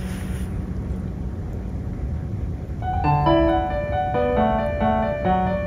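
A low steady rumble of background noise, then about three seconds in piano music begins, a melody of evenly paced single notes over held chords.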